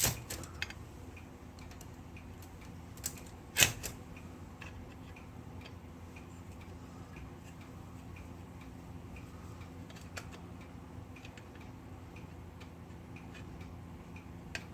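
Scattered small metallic clicks and ticks from hand work on a vintage Smith Corona typewriter's parts during disassembly, with one sharper click about three and a half seconds in, over a steady low hum.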